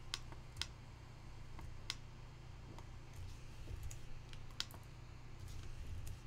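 A handful of sparse, sharp clicks from a computer keyboard and mouse, over a low steady hum.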